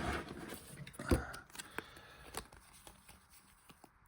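Handling noises from unpacking a box: a soft knock about a second in, then a few light clicks and taps that thin out toward the end.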